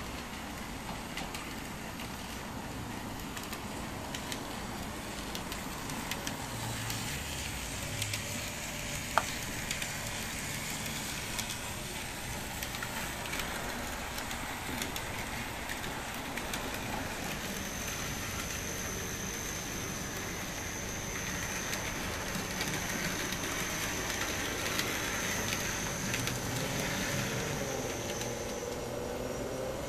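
Small electric N-scale model trams running on the layout's track: a steady hiss with scattered faint clicks. One sharp click comes about 9 seconds in. A thin, high, steady whine sounds through the second half, and a few low sliding tones come near the end.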